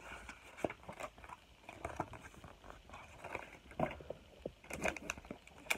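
Hands handling paper and packaging: irregular rustles, light taps and small knocks, with a run of louder clicks near the end.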